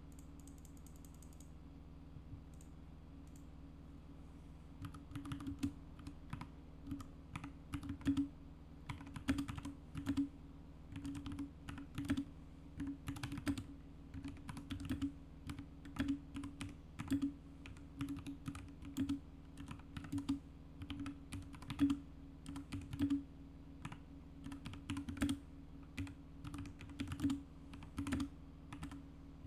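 Typing on a Royal Kludge RK68 mechanical keyboard with lubed RK Brown tactile switches, factory-lubed stabilizers and a foam mod, giving a quick, irregular run of keystrokes. Typing starts about five seconds in over a low steady hum.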